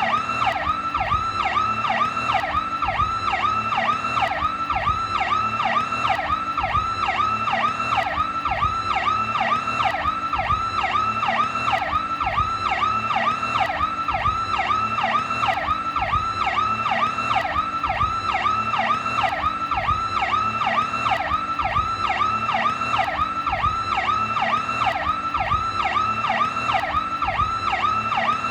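New York police car siren sounding its Powercall tone: a fast, unbroken cycle of pitch sweeps repeating several times a second, steady in loudness throughout.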